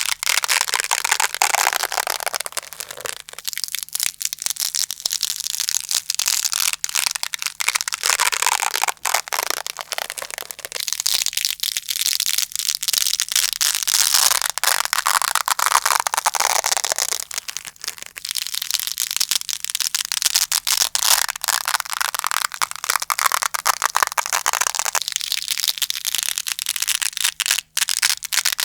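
Hook-and-loop velcro pulled apart and scratched close to the microphone: a continuous dense crackling rip in long swells a few seconds each.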